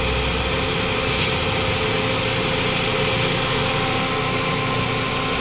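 Toyota Vios 2NZ-FE four-cylinder engine idling roughly and missing on and off, with a brief hiss about a second in. The uneven idle is the sign of a vacuum leak at the hardened, cracked PCV valve hose where it joins the intake manifold.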